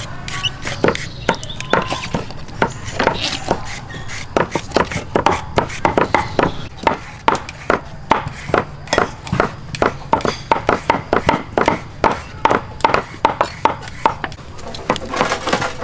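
Kitchen knives chopping on wooden chopping blocks, a steady run of sharp knocks about three a second.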